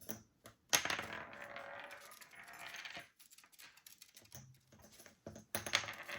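Toy ring-toss rings dropping and clattering: a sharp hit about a second in, followed by a rattle that dies away over about two seconds, small clicks, and another clatter near the end.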